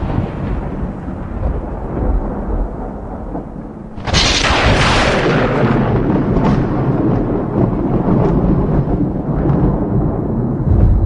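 Thunder: a rumble dying away, then about four seconds in a sudden sharp crack that rolls on into a long low rumble with scattered crackles.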